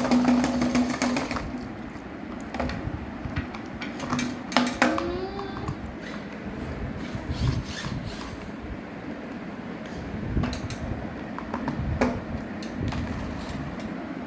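A small battery toy motor buzzing steadily, which stops about a second and a half in. Then come scattered clicks and knocks of plastic toys being handled, with a short rising tone about five seconds in.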